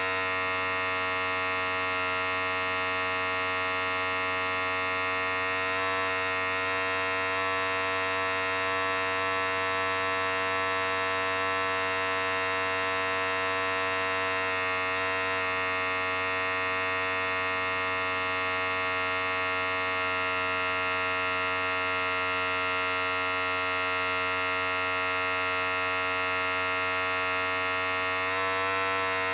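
Electric hair clippers running steadily at an unchanging pitch, a continuous buzz with no starts or stops.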